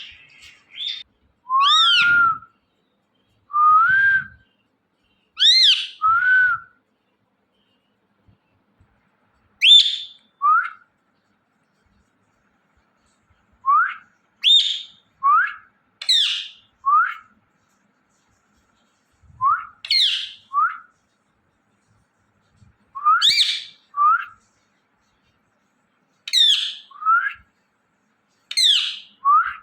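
Indian ringneck parrot giving a series of short whistled calls. Each sweeps steeply in pitch, and they come in clusters of two to four, separated by gaps of a few seconds.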